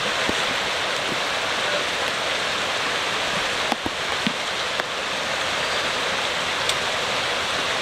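Steady rushing of fast-flowing, muddy creek water, with a few faint clicks near the middle.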